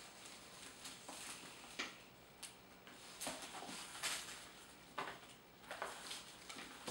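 Faint, irregular rustles and short clicks of a quilted leather handbag with a chain strap being lifted and turned over amid tissue-paper packaging.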